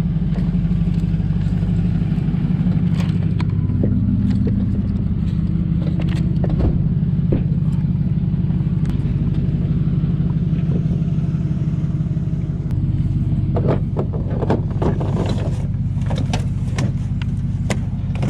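Vehicle engine idling steadily, with a cluster of knocks and clatters from things being handled in the last few seconds.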